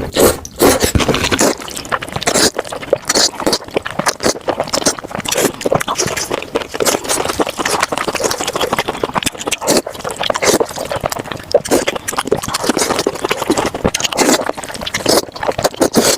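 Close-miked eating of spicy noodles: wet slurping and chewing with a steady run of short smacks and crackles.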